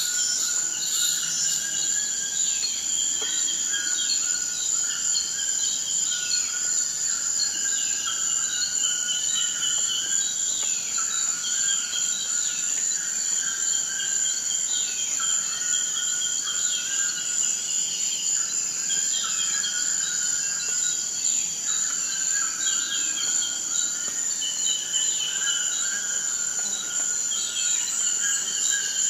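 Forest ambience: a steady, high-pitched insect trill throughout, with many short chirping calls repeated over it.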